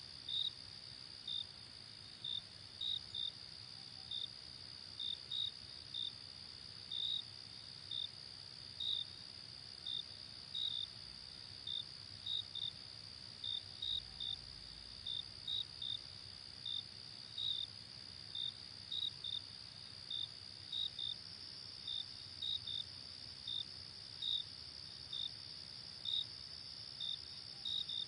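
Crickets chirping: a steady high trill with short chirps over it, about two a second at uneven spacing.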